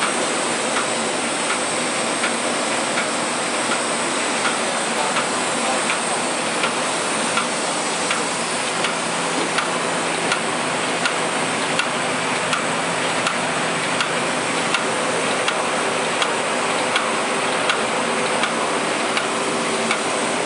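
Miller TP 104 S sheet-fed offset printing press running: a steady mechanical rumble and hiss with a regular click about every 0.7 seconds as it cycles.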